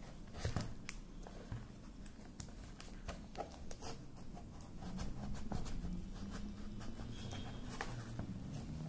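Scissors cutting open a brown paper mailing package: irregular small snips and clicks with paper and plastic rustling as the package is handled.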